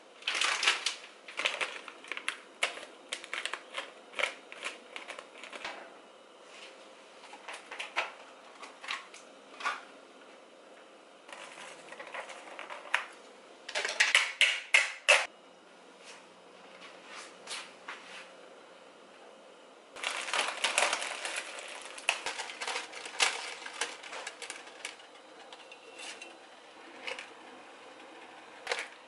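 Kitchen handling noise: quick clicks, taps and crinkles as pots, utensils and food packets are handled at the counter and stove. It comes in busy bursts at the start, about halfway through and about two-thirds through, with scattered light ticks between.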